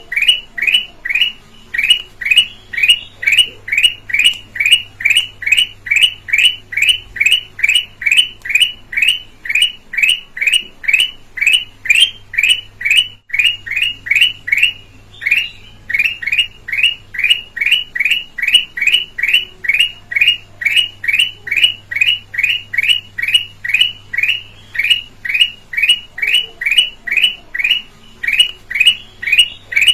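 Red-eyed kutilang emas calling: a clear short note repeated over and over, about three a second, with one brief pause about halfway through.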